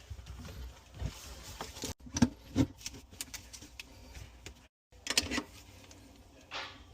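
Scattered clicks and knocks of tools and parts being handled, with two sharp knocks a little after two seconds in and another just after five seconds.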